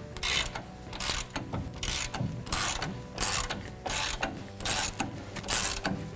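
Ratchet wrench with a 17 mm socket swung back and forth on the lower shock-absorber mounting nut, its pawl clicking in a burst on each back-stroke. About eight strokes at a steady rhythm, roughly one and a half a second.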